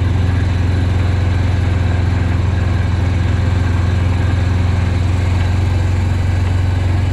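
Gasoline golf cart's small engine running at a steady, even low hum as the cart drives along.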